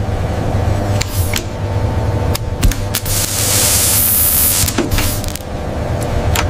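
Factory sound effects for a robotic arm and laser tool: a steady low machine hum with scattered sharp mechanical clicks. From about three seconds in, a bright hiss lasts for about a second and a half as the laser fires on the metal.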